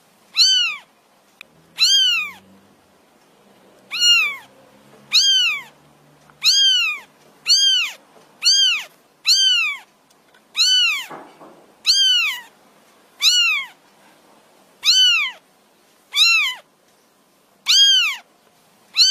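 Kitten meowing over and over, a high call about every second, each one rising and then falling in pitch: a kitten calling for its mother.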